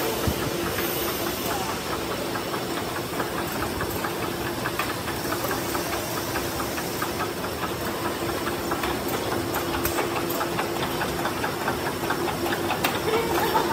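Rotary bouillon cube press running: a steady machine hum under a fast, dense clatter of clicks from its turning punches, a little louder near the end.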